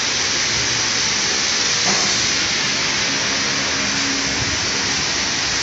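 Steady, loud hiss of factory background noise, with a faint low hum underneath.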